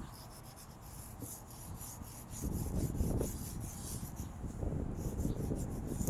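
Chalk scraping over pavement in quick repeated strokes as a piece is filled in. Wind rumbles on the microphone from about two and a half seconds in.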